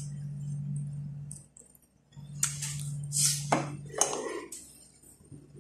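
Metal fork scraping and clicking against a ceramic plate while scooping up cake: a handful of short scrapes between about two and four and a half seconds in.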